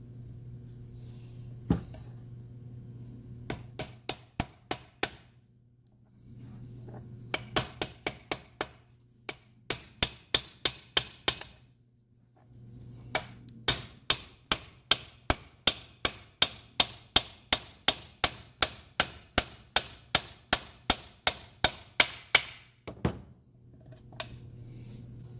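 Hammer striking a steel drift tool to drive a new shift-detent bushing to depth in the case of a ZF S5D 320Z five-speed gearbox. Sharp taps come in short runs, then in a long even run of about two strikes a second, with a last single tap near the end.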